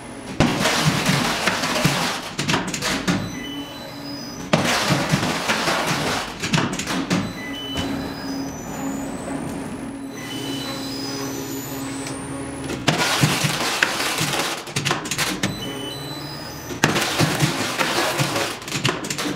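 Electronic background music with repeating rising runs of short high notes, broken every few seconds by a loud rush of noise lasting two to three seconds.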